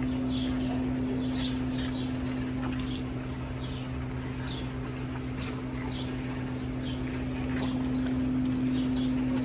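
Steady electric hum of a dairy barn cleaner's motor running. Over it, small birds chirp in short, high, falling notes, one or two a second.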